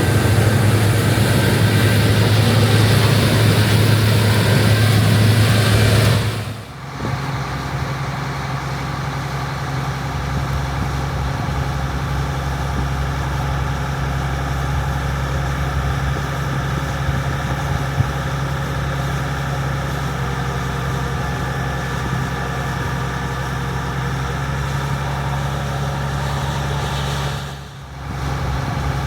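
Diesel engine of an International Harvester 1460 combine running steadily under harvest load as a deep, even hum. For the first several seconds it is louder with more rushing noise, then after an abrupt change it settles to a steadier, lower hum.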